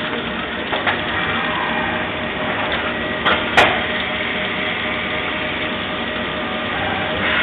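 Mori Seiki MV Junior vertical machining centre machining a valve body under flood coolant: a steady hiss of spindle, cutting and coolant spray with a faint high whine, and a sharp click about three and a half seconds in.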